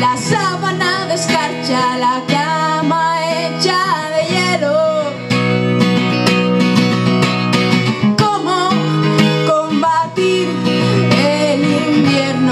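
A woman singing with her own strummed acoustic guitar, with a short stretch of guitar alone in the middle between sung phrases.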